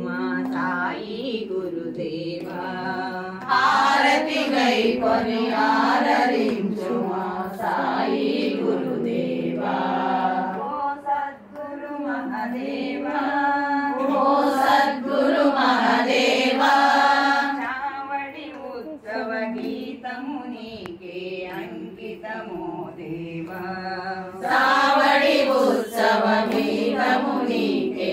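A group of women singing a Telugu devotional bhajan to Sai Baba together, in a chant-like melody. The singing swells louder a few seconds in, again midway, and near the end.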